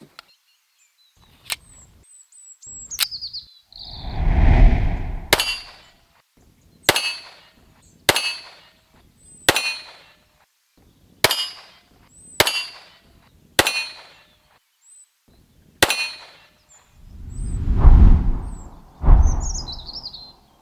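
A 1911 pistol firing a string of eight shots, roughly one to one and a half seconds apart, each with a brief metallic ring. Wind gusts rumble on the microphone before and after the string, and birds chirp faintly.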